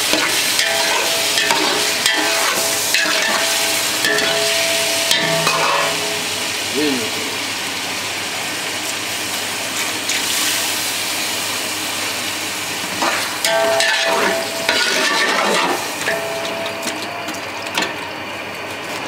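Chicken pieces sizzling in hot oil with yogurt in a large aluminium pot, while a metal spatula stirs and scrapes them against the pot.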